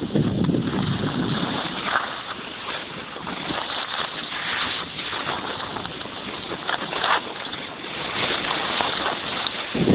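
Wind buffeting the microphone in gusts, heaviest at the start and again near the end, over a steady rushing hiss with a few brief scrapes.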